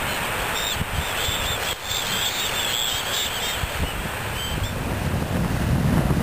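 Wind buffeting the microphone over small waves lapping on a sandy shore, the wind rumble growing stronger near the end. A thin, high wavering tone sounds faintly for a few seconds in the middle.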